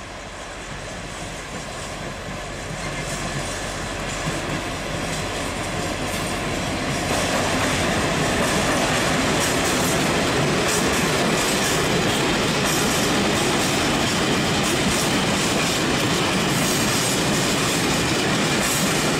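HŽ series 2062 diesel locomotive approaching and passing with a freight train, followed by a long string of tank wagons rolling steadily by with wheels clacking over the rail joints and points. The sound grows louder over the first several seconds, then holds steady as the wagons pass.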